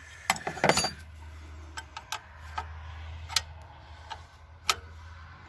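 Irregular metal clicks and clinks of hand tools and engine parts being handled during a throttle-body injection swap on a 4.3 V6, a quick cluster about half a second in and then single ticks spread out, over a steady low hum.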